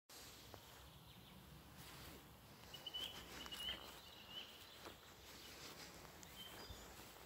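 Faint birdsong from the woods: a short run of thin, high warbled notes about three seconds in, and another brief call near the end, over quiet outdoor background.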